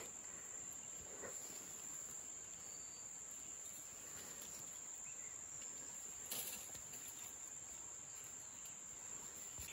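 Insects singing in a steady, unbroken high-pitched drone. A couple of faint brief rustles, about a second in and again past the middle, come from leaves being moved by hand.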